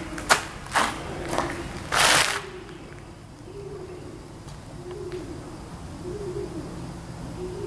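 Pigeons cooing, a low rolling coo repeated about every second and a bit. In the first couple of seconds come a few sharp clicks or knocks, the loudest a longer scrape at about two seconds in.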